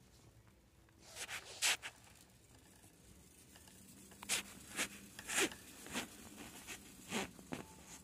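Handling noise: short rasping rubs and scrapes close to the phone's microphone as it brushes against a knit sweater. A few come about a second in, then a run of about seven, roughly two a second, from about four seconds in.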